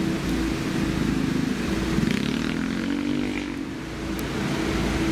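Street traffic: engines running with a steady hum, and about two seconds in one engine rises in pitch and falls away again.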